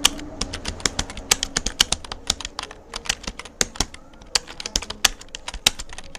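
Fast touch typing on a computer keyboard: a rapid, irregular stream of key clicks.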